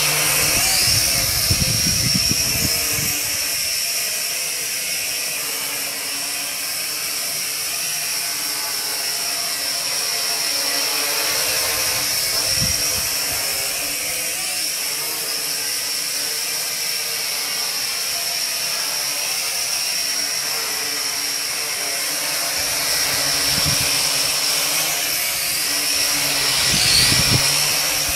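Dromida Ominus micro quadcopter's four motors and propellers whining steadily in flight, the pitch dipping and rising briefly near the end as the throttle changes. Low rumbles of prop wash buffet the microphone as it lifts off right beside it and again as it comes back down close by.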